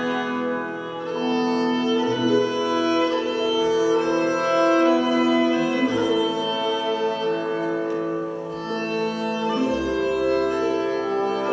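Slow music on bowed strings, long held notes in several parts moving from chord to chord, with a deep bass note coming in near the end.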